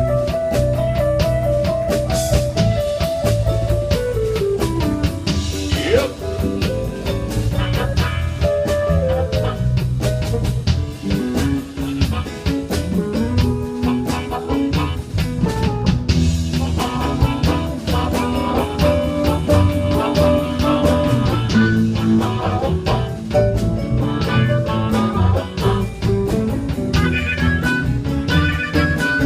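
Live band playing an instrumental slow blues in E: electric guitar lines over a drum kit and bass.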